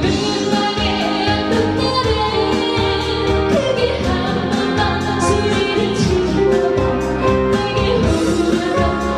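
A woman singing a slow song, held notes with pitch glides, over guitar accompaniment.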